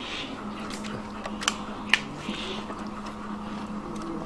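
Dogs chewing and crunching biscuits, with a few sharp cracks in the first two seconds over softer wet chewing.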